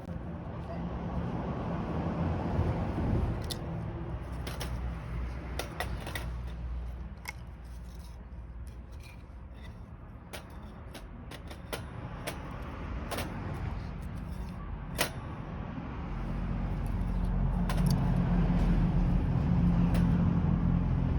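Sharp metallic clinks and taps, about one every second or so, from a small steel fire pit's parts being handled, over a steady low rumble that grows louder near the end.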